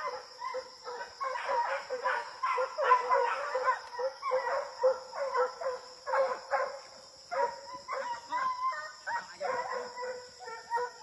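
A pack of hunting hounds baying: many short, overlapping bays and yelps in quick succession, broken by brief pauses. This is the voice the hounds give while trailing game.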